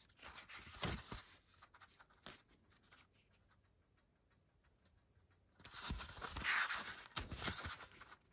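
Pages of a paper booklet being handled and turned, with soft rustles and scrapes. There are short rustles in the first second and a few light taps, then a longer rustle of pages from a little past the middle nearly to the end.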